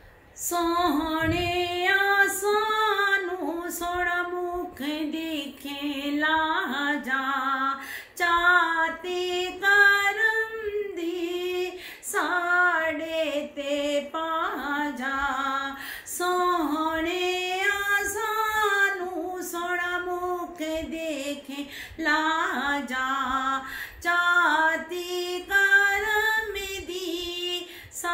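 A woman singing a naat solo and unaccompanied, in long phrases of drawn-out notes that waver up and down, starting about half a second in.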